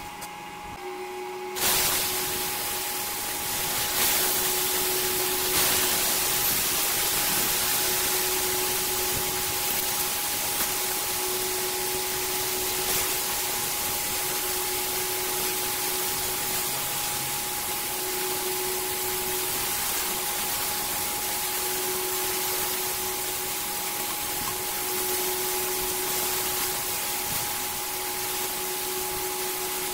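Bacon strips sizzling in a hot stainless steel frying pan: a steady hiss with occasional crackles that starts abruptly about two seconds in. Under it runs a steady electric hum and whine from the induction cooktop.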